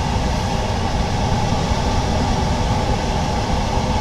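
Steady mechanical running noise, a low hum and rush that stays even throughout, as from workshop machinery such as a pump or compressor.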